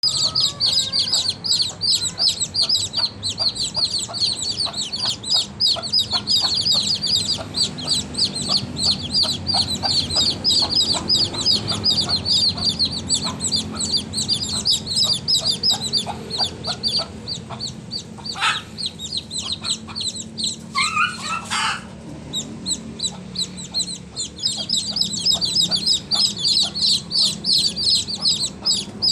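Baby chicks peeping: many short, high chirps overlapping in a rapid, continuous chorus. They thin out for a few seconds about two-thirds of the way through, when a couple of short noises and a lower call are heard, then come back at full density.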